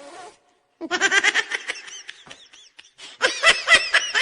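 A person laughing in rapid, high-pitched ha-ha bursts: one bout starts about a second in and tails off, and a second, louder bout starts about three seconds in.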